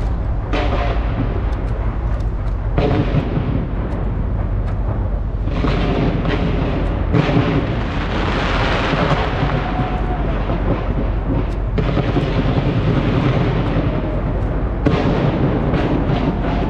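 Large fireworks display firing without pause: deep booms overlapping with sharp cracks and crackling bursts, the barrage changing abruptly every few seconds.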